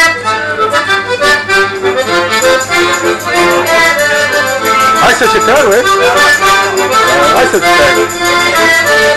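Piano accordion playing a lively tune with chords, while a hand-held shaker rattles along in a steady beat.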